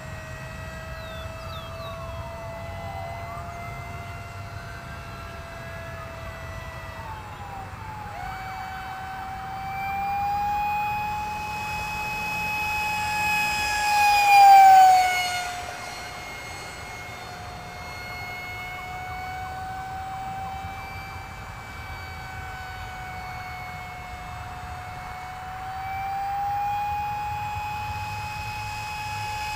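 Radio-controlled F-16 model jet flying past: a steady high whine that wavers in pitch, grows loudest and drops in pitch about halfway through as the jet passes, then builds again near the end on another pass.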